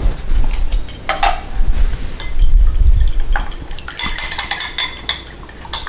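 A metal fork beating a raw egg in a glass bowl, its tines clinking rapidly and irregularly against the glass.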